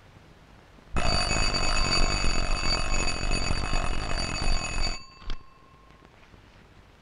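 School bell ringing loudly for about four seconds, then cutting off abruptly, marking the end of a class period. A single knock follows shortly after.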